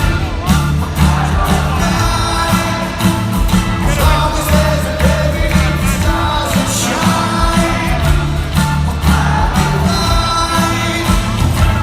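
Rock band playing live with a lead singer: guitars, bass and drums under a sung vocal line.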